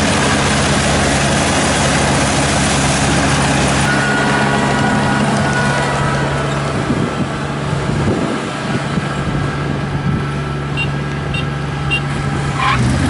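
Kubota ER447 combine harvester running steadily, its engine hum under the harsh noise of the machine at work, which thins out about halfway through. A few short faint beeps sound near the end.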